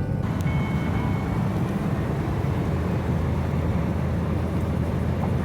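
Fiat Ducato motorhome van driving on a highway: steady engine and road rumble, with the tyre and wind hiss turning brighter just after the start.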